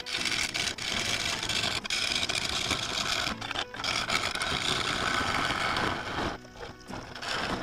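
A turning tool working a spinning claret ash bowl blank on a wood lathe: a dense, steady hiss that stops about six seconds in, giving way to background music.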